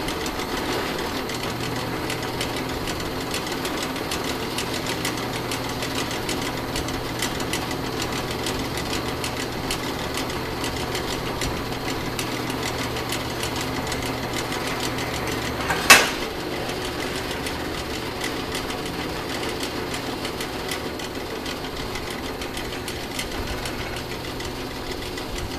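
Drill press running, its twist drill cutting into quarter-inch steel angle iron held by hand on the table, a steady machine hum with the grind of the bit in the steel. A single sharp click about two-thirds of the way through.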